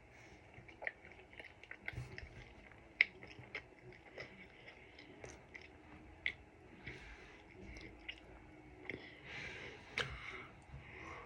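Someone chewing food close to the microphone: irregular crunchy bites and wet mouth clicks, with a couple of brief soft rustles.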